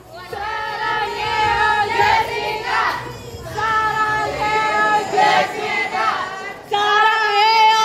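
A crowd of high voices singing together in long held notes, with short breaks between phrases.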